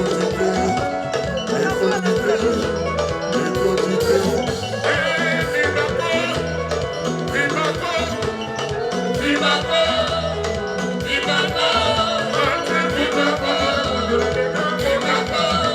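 Congolese rumba band music with a steady, repeating bass line and voices singing over it, the singing coming in about a third of the way through.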